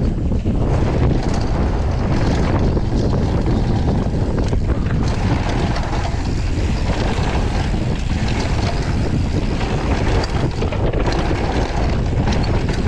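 Wind buffeting an action camera's microphone as a Scott Gambler downhill mountain bike descends a dirt trail, with the tyres rumbling over the dirt and scattered knocks and rattles from the bike over bumps.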